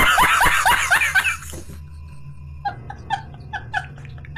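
A man laughing hard: a fast run of loud laughs, about five a second, for the first second and a half. After a short pause come shorter, higher, squeaky wheezing laughs in quick pairs.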